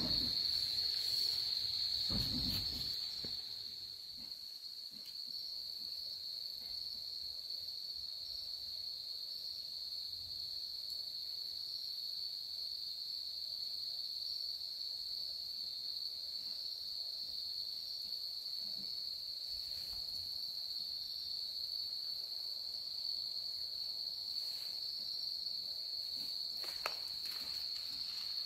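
Crickets trilling in a steady, high, unbroken chorus, with some low rumbling in the first three seconds.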